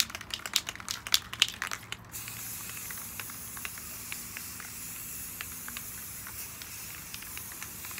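Aerosol can of Rust-Oleum American Accents metallic gold spray paint: rattling clicks for about the first two seconds, as the can is shaken and its mixing ball knocks inside, then a steady hiss as the paint is sprayed.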